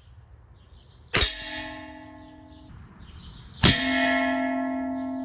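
Two air rifle shots about two and a half seconds apart, each pellet striking metal cookware with a sharp clang that rings on in a bell-like tone. The second ring is louder and cuts off suddenly near the end.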